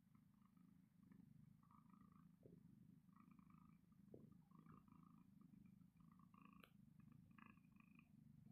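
Domestic cat purring, a faint, steady low rumble. A brief click sounds about two-thirds of the way in.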